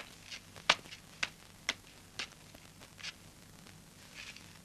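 A string of short, light taps or clicks at an uneven pace of about two a second, the loudest a little under a second in, dying away after about three seconds.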